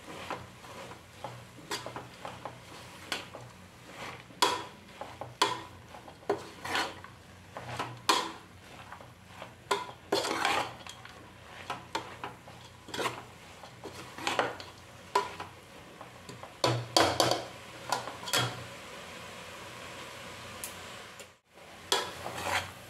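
Metal ladle stirring and scraping chopped amaranth leaves in an aluminium pot, with irregular clinks of the ladle against the pot, one or two a second, over a faint sizzle of the greens frying on a high flame. A brief gap near the end.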